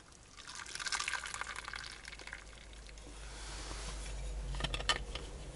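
Liquid poured from a stainless-steel thermos into a small cup, a hissing trickle lasting about two seconds, followed near the end by a couple of sharp clicks.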